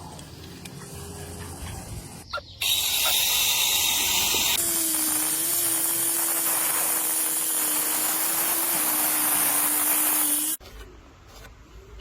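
A loud, steady hiss like a spray or escaping air, starting suddenly a few seconds in. A steady hum joins it about two seconds later, and both stop abruptly near the end.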